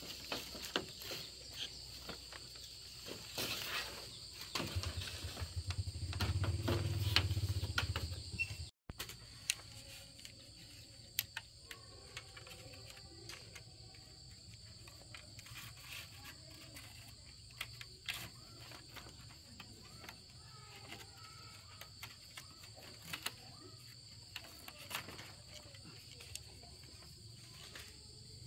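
Steady high-pitched insect chirring outdoors, with scattered clicks and knocks throughout. A low rumble rises between about five and eight seconds in, then the sound breaks off abruptly.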